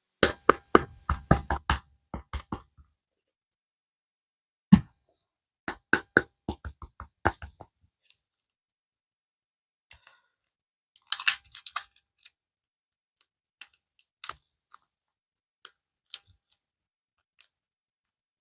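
Handling of clay and its small plastic packaging in an unboxing: quick runs of sharp clicks and taps, a single loud knock about five seconds in, another run of clicks, then scattered single ticks.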